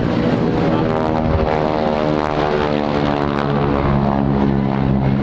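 Propeller-driven airplane passing by, its engine note dropping steadily in pitch as it goes past.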